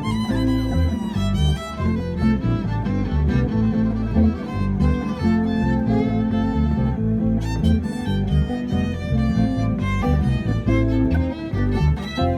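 Live band music, an instrumental stretch with a fiddle playing lines over guitar and a steady bass.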